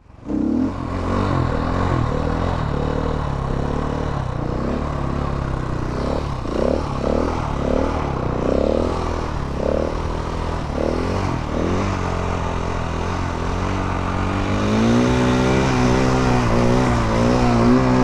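Motorcycle engine idling steadily, its pitch rising a little and wavering about three quarters of the way in.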